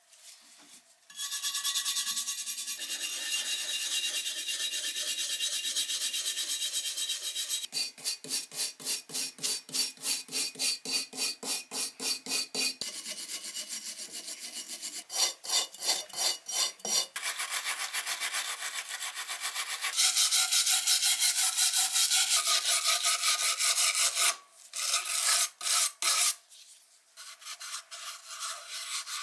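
Small hand wire brush scrubbing rust off the metal of an antique coal iron, a dry scratching that starts about a second in. Long stretches of steady scrubbing alternate with runs of quick back-and-forth strokes at about four a second. This is hand rust removal ahead of sandblasting.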